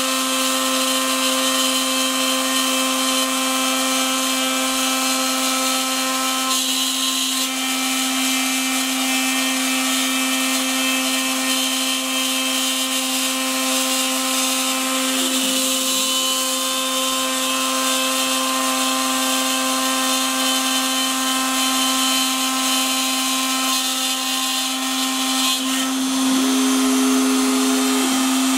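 Shapeoko CNC router spindle running at steady speed, a constant whine with the hiss of a small end mill cutting a dark wood headstock plate. A second, higher tone joins briefly near the end.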